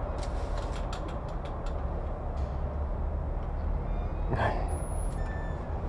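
Steady low rumble of outdoor street traffic, with a few sharp clicks in the first couple of seconds and a short creak-like sound about four and a half seconds in as the restaurant's glass door is pushed open.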